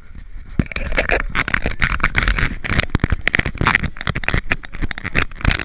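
Irregular crunching and scraping of footsteps on packed snow, mixed with the rubbing and knocking of a body-worn camera jolting as its wearer moves. It turns loud about half a second in.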